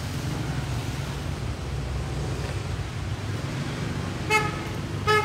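Steady street-traffic rumble, with a vehicle horn giving two short toots less than a second apart near the end.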